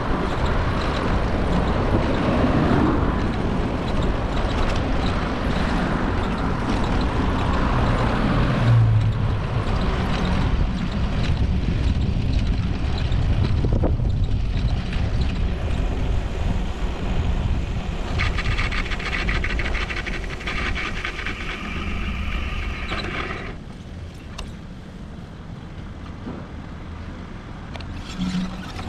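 Street traffic and rumbling road and wind noise heard while moving along a city street. A higher, buzzing sound joins for about five seconds past the middle, after which everything gets quieter.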